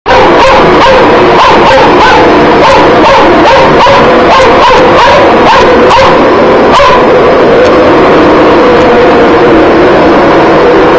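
Dog barking repeatedly at a running vacuum cleaner, about two barks a second, over the vacuum's steady loud whine. The barking stops about seven seconds in while the vacuum keeps running.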